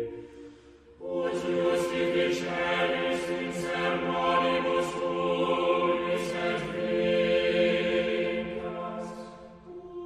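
Music of chant-like choral singing: long-held voices in stacked tones with sung sibilants. It dips at the start and swells back in about a second in, easing off again near the end.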